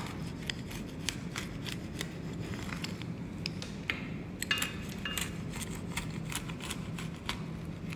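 Metal pizza cutter wheel rolling through a crisp chickpea-flour za'atar flatbread on a wooden board: a continuous run of small irregular crackling clicks as the crust and sesame-topped za'atar crunch under the blade, over a faint steady low hum.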